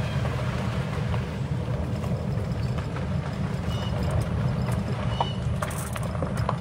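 Small vehicle driving slowly along a road: a steady low rumble of its motor and tyres that holds an even level throughout.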